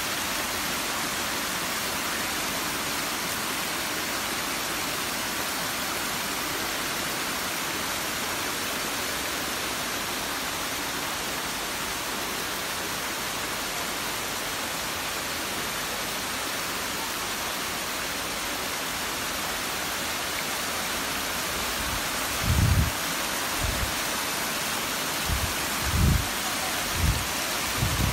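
Small waterfalls spilling over mossy rocks into a shallow pool, a steady rushing splash of water. In the last few seconds several short low thumps stand out above the water.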